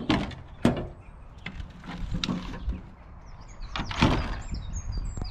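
Garden rubbish being thrown by hand from a wheelbarrow into a truck's tipper bed: a run of knocks and clatters, two sharp ones in the first second and the loudest about four seconds in. Birds chirp near the end.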